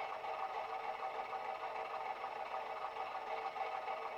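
DCC sound decoder in a model Class 128 DMU playing a first-generation DMU diesel engine idling steadily, from a Class 121 sound file. It comes through small 25x25x7mm megabass speakers, so it sounds thin, with almost no bass.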